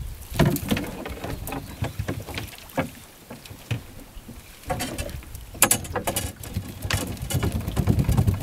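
Monofilament fyke net being hauled out of the water over the side of a small boat: water splashing and dripping off the mesh, with scattered sharp clicks and knocks, over a low rumble.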